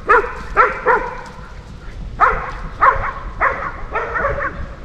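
A dog barking repeatedly, about eight short barks, with a pause of about a second after the first three.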